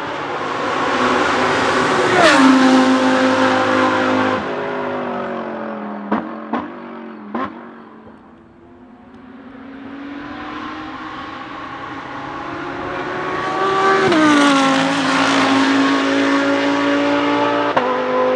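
Audi R8 LMS GT3 Evo II's 5.2-litre V10 race engine passing at full throttle, its pitch dropping as it goes by. The driver then lifts off, and the engine gives three sharp throttle blips on quick downshifts before it fades away. A second car or lap rises as it approaches, drops in pitch as it passes, and holds a steady high note near the end.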